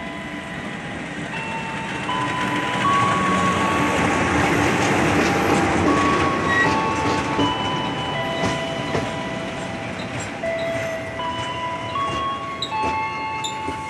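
A diesel-hauled passenger train pulling in alongside the platform. Its running noise swells to a peak about four to six seconds in, then eases as the coaches roll slowly past with a few wheel clicks. A chiming melody of steady notes plays over it throughout.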